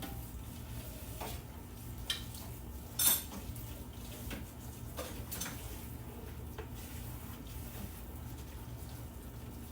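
Light kitchen clatter of dishes and utensils being handled: a few scattered clicks and knocks, one sharper clack about three seconds in, over a steady low hum.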